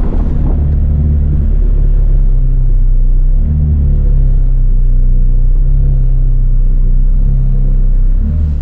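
McLaren 765LT's twin-turbo V8 running at low speed, heard from inside the cabin, its note rising briefly about three and a half seconds in.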